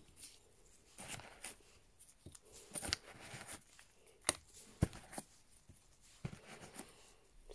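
Small plastic nail-gel jars being unpacked and set down one by one on a paper-towel-covered table: scattered light clicks and taps with faint rustling of handling in between.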